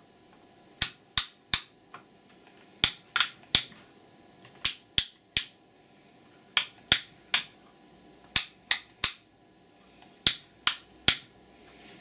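White plastic rocker light switches, British two-way and intermediate types, being clicked by hand. The clicks come in six quick runs of three, about three clicks a second, with a short pause between runs.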